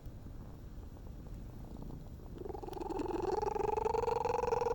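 Cat purring, at first a low rough purr. About halfway through, a louder humming tone comes in over the purr and holds, rising slightly in pitch: the strange purring of a stray cat.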